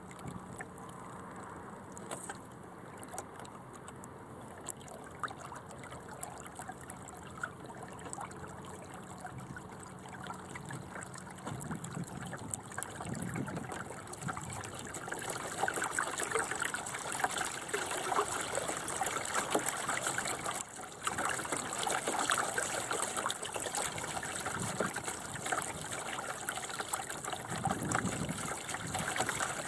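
Water rushing and gurgling along the hull of a small sailing dinghy under way, getting clearly louder about halfway through.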